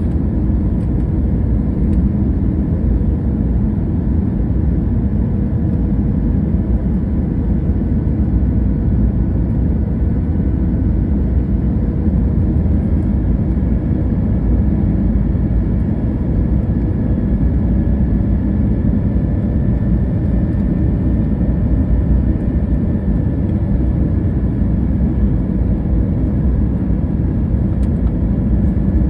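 Jet airliner cabin noise on final approach: a steady, loud roar of engines and rushing air, with a faint steady whine above it.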